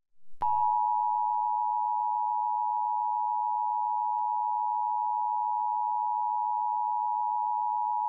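Emergency Alert System attention signal: a steady two-tone alert (853 and 960 Hz sounding together) starting about half a second in. It announces that an emergency warning is about to be read, here a National Weather Service severe thunderstorm warning.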